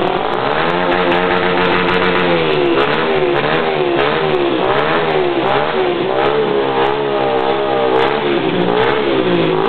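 Honda CG 125 Titan motorcycle engine revved up and down over and over through a popper exhaust ("estralador"), its pitch rising and falling about once a second, with scattered sharp crackling pops.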